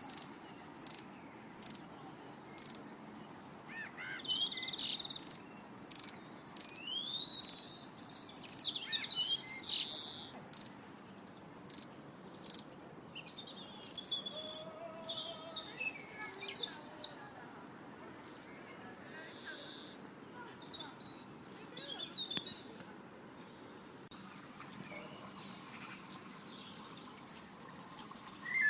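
Birds chirping and singing: a busy mix of many short, high chirps and brief trills, over a faint steady background hiss.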